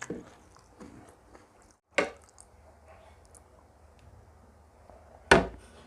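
Person eating: faint chewing and small mouth sounds, with a short sharp sound about two seconds in and a louder brief one near the end.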